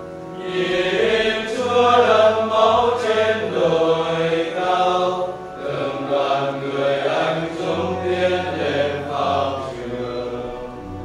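A slow hymn with a chant-like melody, sung over steady held low notes, fading near the end.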